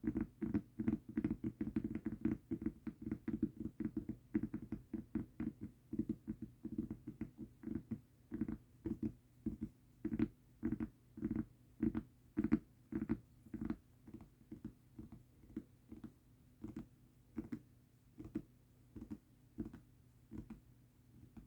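Tapping on a mousepad: a quick, dull patter of several taps a second that slows and thins out to sparse, fainter taps toward the end.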